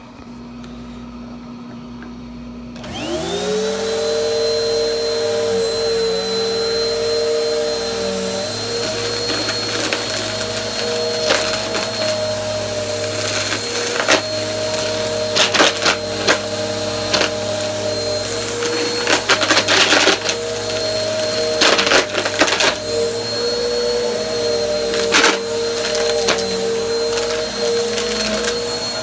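Bissell PowerForce Helix upright vacuum switching on about three seconds in: its motor spins up to a steady hum with a high whine. From about ten seconds on, frequent sharp crackles and rattles come through as it sucks up a crunchy pile of dirt and carpet freshener from the carpet.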